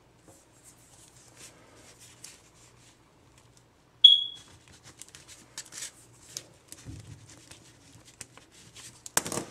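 Pen scratching on paper as words are handwritten on a letter. About four seconds in comes a single short, high electronic beep that fades quickly; it is the loudest sound. Near the end the paper is handled with a loud rustle.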